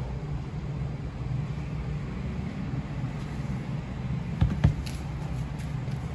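Steady low background rumble with two sharp knocks close together about four and a half seconds in.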